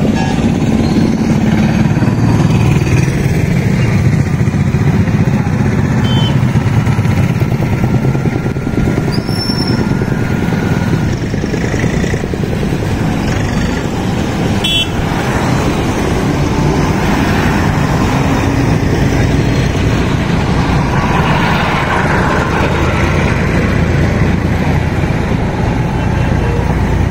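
Steady street noise of motor vehicles, mainly motorcycle engines running.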